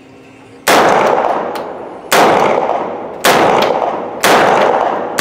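Caracal CMP9 9mm straight-blowback submachine gun firing four single aimed shots about a second apart, each shot ringing out in the reverberant indoor range.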